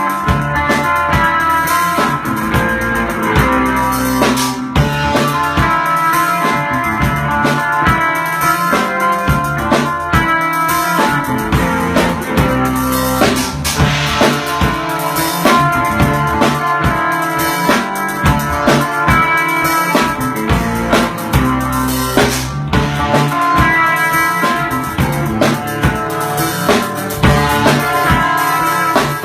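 Rock-style instrumental music: a drum kit keeping a steady beat under guitar.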